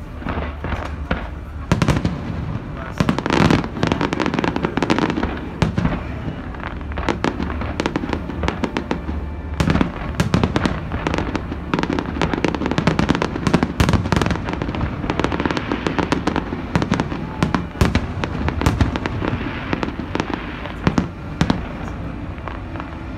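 Aerial fireworks bursting in a dense, continuous barrage of bangs and crackles, with the heaviest volleys about two, three and a half, ten and fourteen seconds in.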